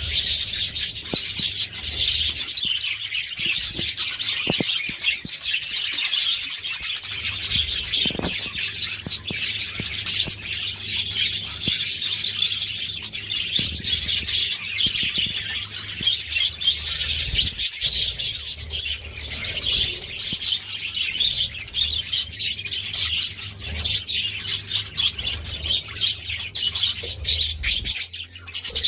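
Budgerigars chattering and chirping without a break: a busy, unbroken stream of short twittering calls.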